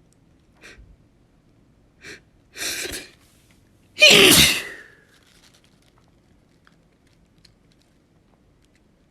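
A person sneezing once, loudly, about four seconds in, after a few quick catches of breath that build up to it.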